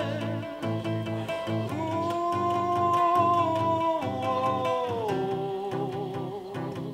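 Acoustic band music: two acoustic guitars strummed, with an egg shaker ticking in time. A long held wordless note with a slight vibrato carries over the chords and steps down in pitch about five seconds in.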